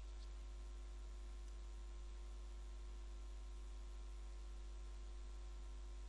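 Low, steady electrical mains hum with a faint hiss underneath.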